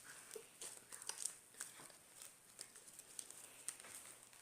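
Fluffy slime made with shaving foam being squeezed and pulled by hand, giving faint, irregular little crackles and pops.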